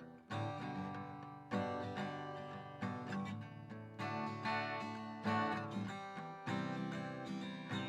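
Guitar strummed in slow chords, about one strike a second, each chord ringing out before the next.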